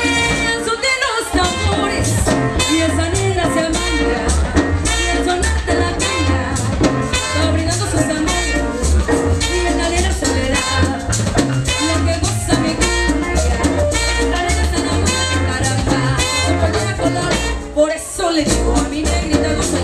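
Live cumbia band playing loudly, with a steady dance beat, singers and shaken percussion; there is a short lull near the end before the full band comes back in.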